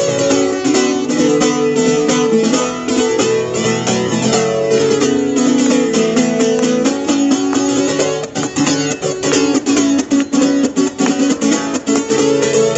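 Live band playing an instrumental break led by guitars, with no singing; about two-thirds of the way through the playing turns into quick, sharp strokes before the sustained chords return near the end.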